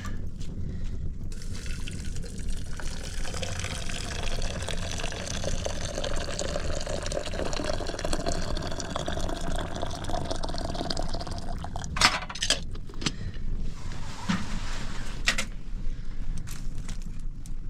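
Liquid pouring steadily into a container for about ten seconds, its pitch slowly rising as the container fills. This is followed by a few sharp clicks or knocks.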